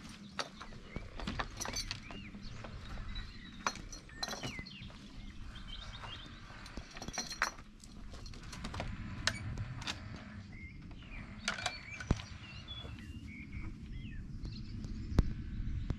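Birds singing now and then, with a string of sharp clicks and knocks from trekking poles and a wooden field gate being opened, passed through and shut.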